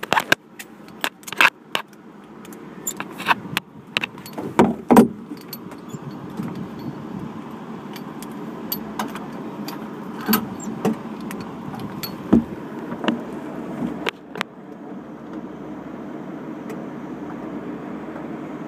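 Handling noise of a phone rubbing against clothing: a quick run of clicks and knocks for the first several seconds, thinning to occasional taps, over the steady low hum of a truck engine running.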